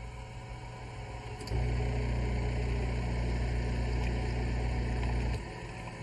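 BREWIT X800 coffee machine running a mixer rinse cycle: a low motor hum switches on with a click about a second and a half in, runs steadily for about four seconds and then cuts off.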